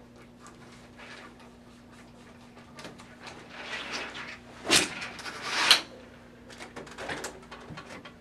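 Heavy blackout curtain being hung on a ceiling track: fabric rustling and small clicks as its grommets go onto the hooks of nylon-wheeled carriers. About halfway through, two louder, short sliding scrapes, as the curtain is drawn along the track on its carriers.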